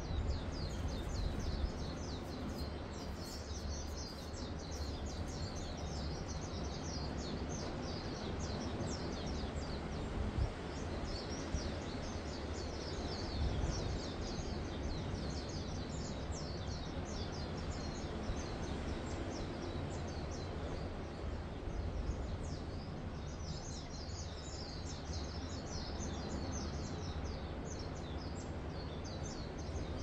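Many small songbirds chirping in a dense dawn chorus of short, high, quick calls, thinning out for a few seconds past the middle, over a steady low wash of gentle surf.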